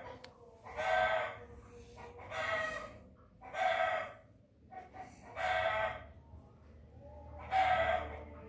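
A chicken calling repeatedly: about five short pitched calls, each roughly half a second long, a second or two apart.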